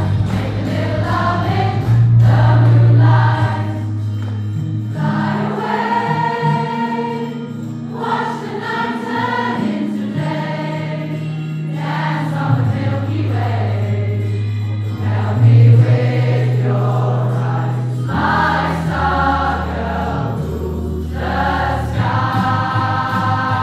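A large mixed choir, mostly women's voices, singing a pop song in harmony over an accompaniment of held bass notes that change every second or two.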